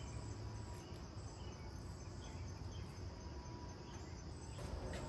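Faint outdoor background of insects chirping steadily over a low rumble.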